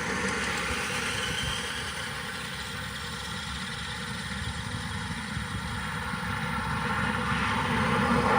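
Radio-controlled cars' motors whining steadily as they race, over a low rumble, a little quieter in the middle and louder again near the end.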